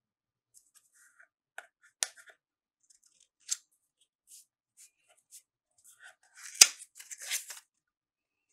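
A new tarot deck being handled: scattered light clicks and rustles of the card stock, with a sharp snap about six and a half seconds in followed by a brief rustle.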